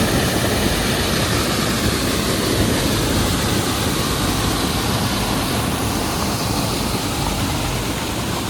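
Water rushing steadily over rocks.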